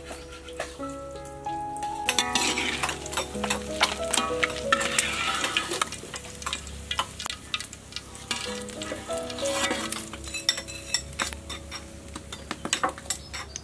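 Hot cooking oil sizzling in a wok, with frequent small pops, loudest in the first half and picking up again near the end.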